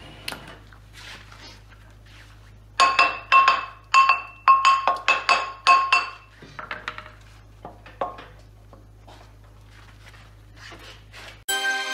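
A hammer tapping the rusty flywheel of a BMW M10 engine about nine times in quick succession to work it loose, each strike ringing with the same metallic pitch, with lighter clinks of metal parts around the taps. Background music comes in near the end.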